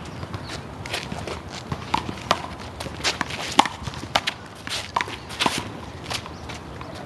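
Handball rally: the small rubber ball smacked by hand and slapping off the wall, with quick footsteps on the court. A string of sharp slaps comes at uneven intervals, the loudest about three and a half seconds in.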